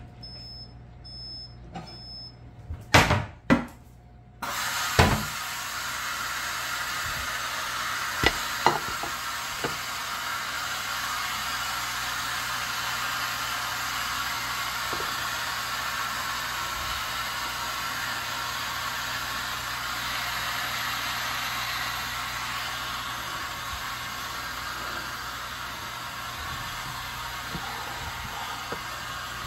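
Kitchen handling: a few sharp knocks and clatters about three to five seconds in, with more at about eight seconds. From about four seconds in, a steady rushing hiss starts suddenly and carries on with occasional light taps.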